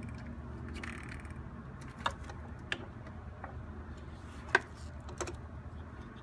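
Hands connecting a cable to a car battery terminal: a few scattered sharp clicks and taps, the loudest about four and a half seconds in.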